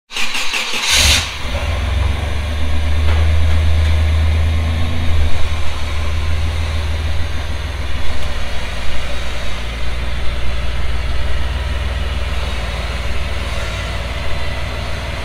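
The off-road Blazer rig's engine starts about a second in, runs loudest for the next few seconds, then settles to a steady low idle while the rig creeps forward.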